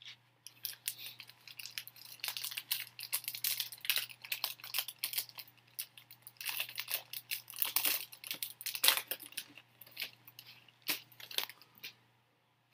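Trading card pack wrapper being torn open and crinkled, an irregular run of crackling and tearing sounds.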